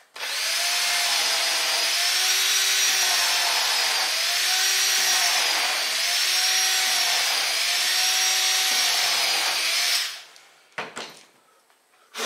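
Cordless drill with a 3/16-inch bit drilling into a wooden board through the holes of a mounting plate. The motor whine wavers and dips in pitch every couple of seconds as the bit bites, then cuts off about ten seconds in.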